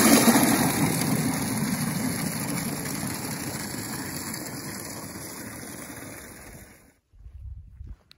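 Well water gushing from a yard spigot into a plastic five-gallon bucket, the rush slowly getting quieter, then cutting off abruptly about seven seconds in. A few low thumps follow near the end.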